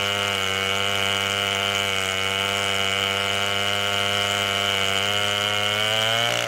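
Large 105cc two-stroke chainsaw running at a steady, unchanging high speed, its bar ripping lengthwise through a walnut log in a chainsaw mill.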